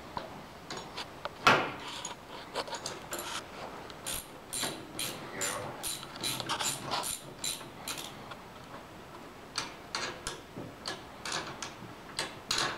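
Wrench working a nut on the snowblower's chute-control hardware at the tractor handlebars: irregular runs of sharp metallic clicks, a few a second, with one louder metal knock about a second and a half in.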